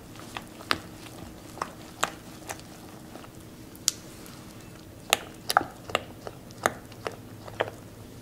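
Silicone spatula stirring thick chocolate batter in a glass bowl, with irregular sharp clicks as it knocks and scrapes against the glass. The clicks come closer together in the second half.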